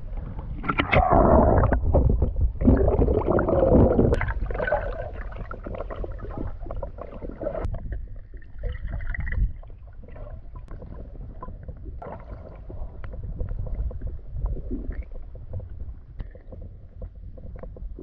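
Lake water sloshing and gurgling around a microphone at the surface, loudest for the first four seconds or so. It then gives way to a low, muffled rumble as the microphone is held underwater.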